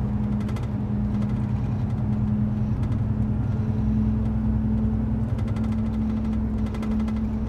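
Steady low drone of a running motor vehicle engine, holding one constant hum with no change in level.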